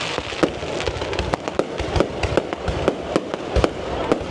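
Fireworks bursting in a dense, irregular barrage: many sharp bangs and cracks, several a second, overlapping with no pause.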